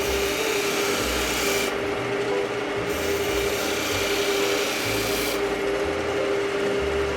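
Wood lathe running with a skew chisel cutting the second side of a V-groove, riding the bevel with the point engaged: a steady hum from the spinning lathe under the hiss of the cut. The hiss comes and goes as the chisel takes separate passes.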